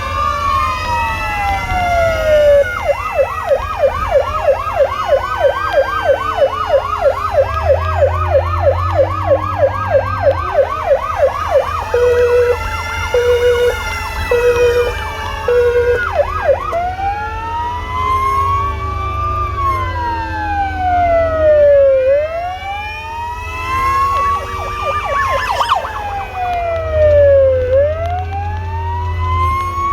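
Several emergency-vehicle sirens sound together from a procession of vintage emergency vehicles. Slow wails rise and fall over a few seconds each. From about three seconds in until about twelve, one siren switches to a fast yelp of about four sweeps a second. Four short steady horn blasts follow, and there is a low engine and road rumble underneath.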